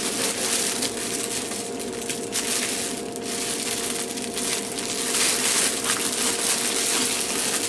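Plastic packaging crinkling and rustling as a towel is handled and unwrapped, over a faint steady hum.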